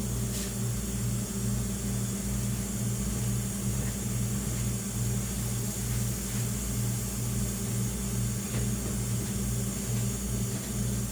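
Steady low electrical hum with a slight regular waver in level.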